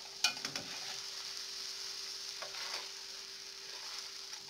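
Layered feteer meshaltet flatbread frying in butter and oil in a pan, with a steady sizzle. A couple of sharp clicks come near the start as the spatula touches the pan.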